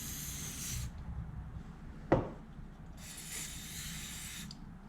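Aerosol carburetor cleaner sprayed in two short hissing bursts into a carburetor's float bowl to wash out gummed buildup, with a single sharp knock between the bursts.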